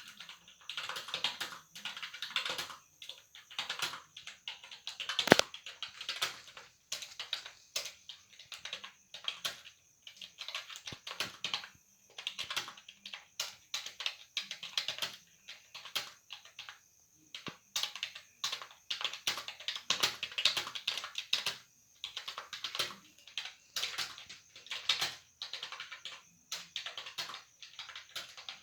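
Fast typing on a computer keyboard at about 50 words a minute: a steady stream of key clicks in runs broken by short pauses, with one sharper, louder stroke about five seconds in.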